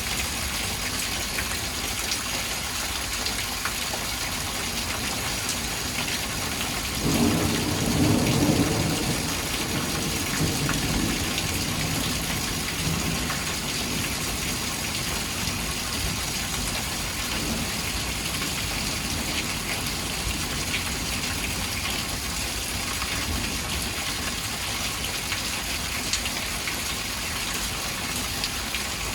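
Steady rain falling, with a low rumble of thunder about seven seconds in that lasts a few seconds.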